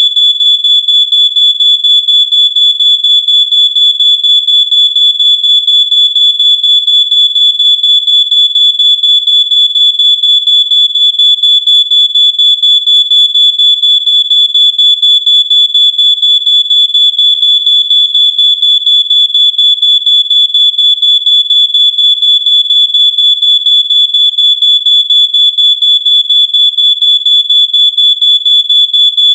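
Smoke alarm sounding: a loud, high-pitched electronic tone pulsing rapidly and without a break.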